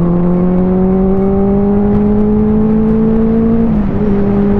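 Benelli 600i inline-four motorcycle engine pulling steadily at road speed, its note slowly rising as the bike gathers speed. About three and a half seconds in it dips slightly in pitch, then holds steady. A rush of wind noise runs underneath.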